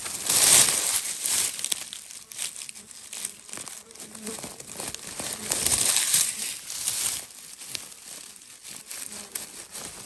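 Crinkling, crackling rustle made of many small clicks, loudest about half a second in and again around six seconds in.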